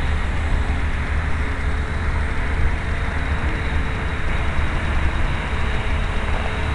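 Wind rumbling and buffeting on the microphone, a steady outdoor noise, with a faint steady hum from the distant RC plane's brushless electric motor and 8x3 propeller in flight.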